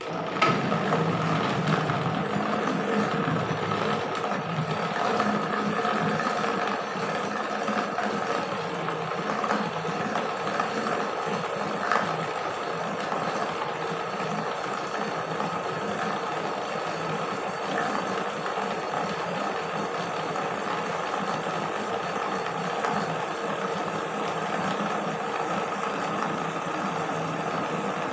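Electric countertop blender motor running steadily, chopping fibrous banana stem heart in water. It switches on abruptly and is a little louder for the first few seconds before settling to an even level.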